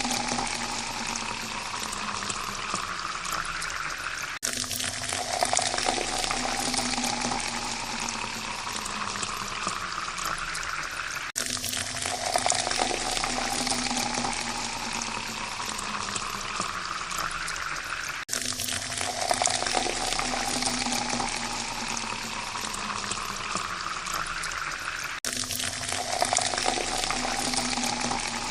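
Water pouring steadily into a glass, the pitch rising as the glass fills. Each pour lasts about seven seconds, then cuts off and starts over low again, four times.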